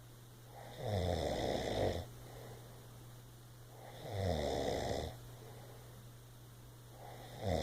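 Snoring: three snores about three seconds apart, each about a second long and dropping in pitch, the third starting near the end.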